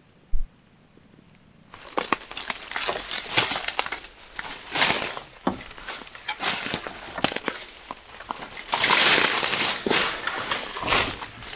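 Irregular crunching, snapping and rustling of dry leaves and twigs, starting about two seconds in and loudest a little over two-thirds of the way through.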